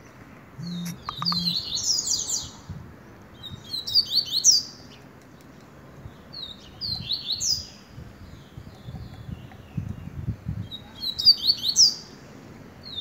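A canário (caged songbird) singing in four bursts a few seconds apart, each a quick run of sharp, high, falling notes.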